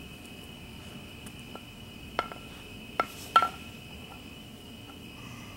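Crickets chirping steadily in a continuous high-pitched drone. Three sharp, ringing clicks come about two, three and three-and-a-half seconds in, the last the loudest.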